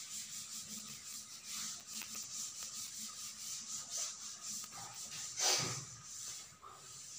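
Chalk duster rubbing across a chalkboard in quick, even back-and-forth strokes, erasing the chalk writing, with one louder swipe about five and a half seconds in.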